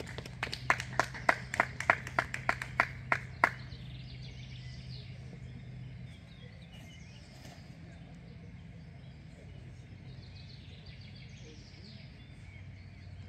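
A small crowd of spectators clapping, about four claps a second, for roughly three and a half seconds after a player is introduced on the tee. Then birds chirping faintly over a low steady hum.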